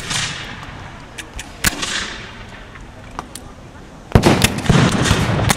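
Black-powder muskets firing blanks: a sharp shot about a second and a half in, then a ragged burst of several shots about four seconds in, each shot trailing off in a rolling echo.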